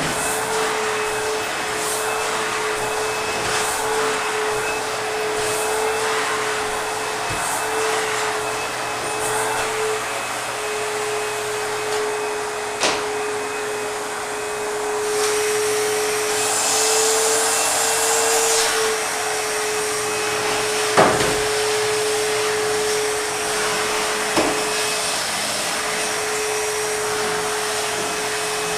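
ProTeam backpack vacuum running continuously with a steady motor whine, its airflow hiss growing stronger for a couple of seconds around the middle. Three sharp knocks stand out over it.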